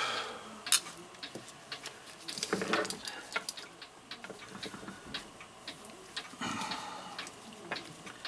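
Irregular small metallic clicks and brief scraping as a mantel clock movement and its parts are handled and worked on with tools, its mainsprings let down. The clicks come at uneven intervals, not the even beat of a running clock.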